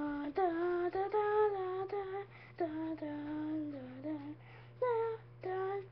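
A child singing a wordless tune in a string of held notes with short breaks between them.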